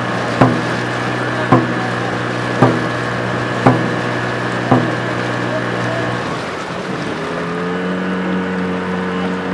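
Dragon boat drum beaten about once a second, five strokes setting the paddling rhythm, then stopping. Under it a motorboat engine runs steadily, dips about six seconds in and comes back at a higher pitch.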